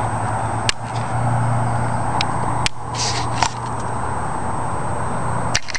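Steady outdoor background noise with a low hum, broken by four sharp handling clicks on the camera microphone as it is moved.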